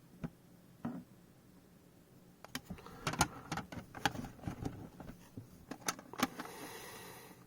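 Hard plastic graded-card slabs clicking and clacking against each other as they are handled and shuffled: a couple of single clicks, then a quick run of knocks, ending in a short soft rustle.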